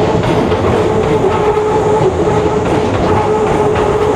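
Commuter train running past at close range, wheels clicking over the rail joints, with a steady tone running through it.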